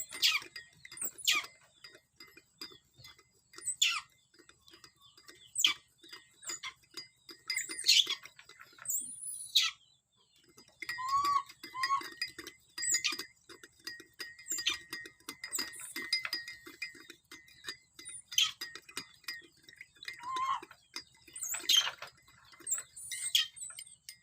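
Young monkey's high-pitched squeals, each sweeping sharply down in pitch, repeated every second or two, with faint clicking between them.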